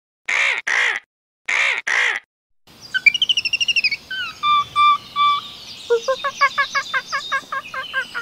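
Bird cawing: two pairs of harsh caws. About two and a half seconds in it gives way to forest birdsong of trills, whistled notes and a quick run of repeated chirps, over a steady outdoor background.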